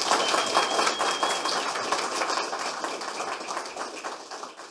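Audience applauding, dense clapping that gradually dies down toward the end.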